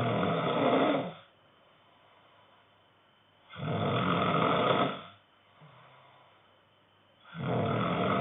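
A man snoring in his sleep: one snore ends about a second in, a full one comes near the middle, and another starts near the end. Each snore lasts about a second and a half, one every four seconds or so, with quiet between them.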